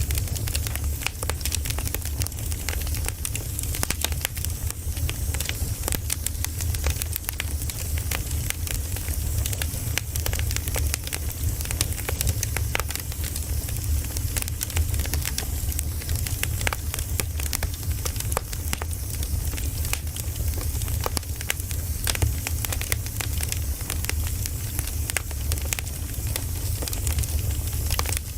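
Campfire burning, with a dense, continuous crackle of small pops over a low steady rumble.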